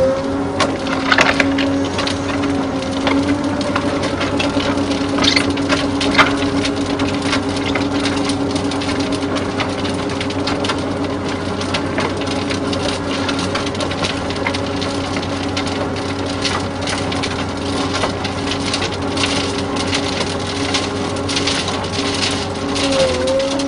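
An MB S18 screening bucket's rotating drum sifts damp soil on an excavator, with a constant dense clatter of soil and stones tumbling inside it. Under it the excavator's engine and hydraulics hum steadily.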